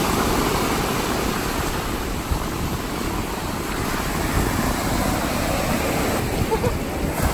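Small waves washing up and running back over the sand, with wind rumbling on the microphone.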